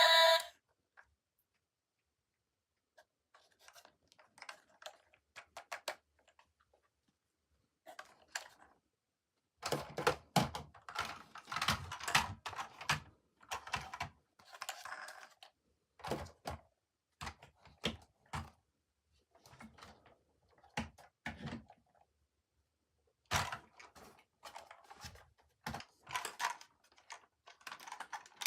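Toy packaging and plastic toy trains being handled by hand: irregular clicks, taps and rustles of cardboard and plastic, coming in short clusters with pauses between.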